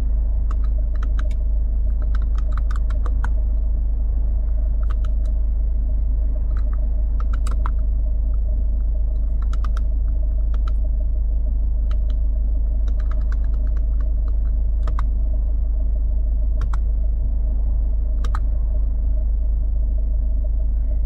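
Clicks of buttons being pressed on a 2013 Ford Kuga's SYNC audio and sat-nav controls, at irregular times and sometimes in quick runs of several, over a steady low rumble in the car's cabin.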